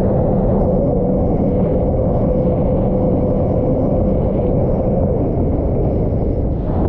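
Sea-Doo GTR 230 jet ski under way at a steady speed: its supercharged three-cylinder engine runs with a steady whine under a heavy rumble of wind and water rushing past.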